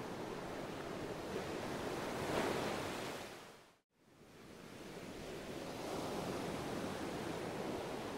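Pencil and stiff paper being worked and handled, a steady hissing rustle that swells a little over two seconds in. It cuts to silence for a moment just before halfway, then comes back.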